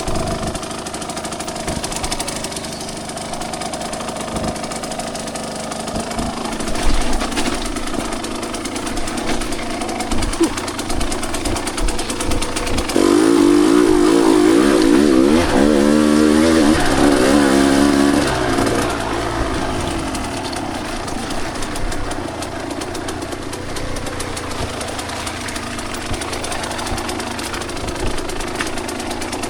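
Two-stroke dirt bike engine running with changing throttle, with a few sharp knocks. From about 13 to 18 seconds in it is revved hard and loudest, its pitch rising and falling, then it settles back.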